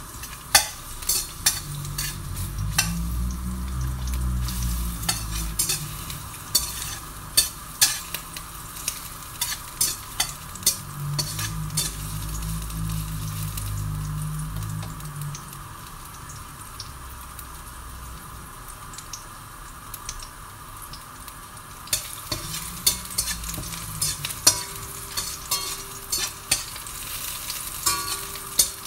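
Chopped garlic sizzling in hot oil in a stainless steel wok, stirred with a metal spatula that clicks and scrapes against the pan many times.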